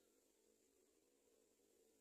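Near silence: only faint, steady background hiss.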